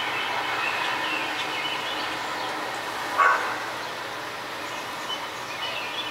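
A dog barks once, a short loud bark about three seconds in, over steady background noise.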